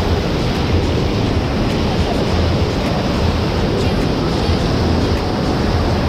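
Loud, steady rush of water, with a low rumble from wind buffeting the microphone.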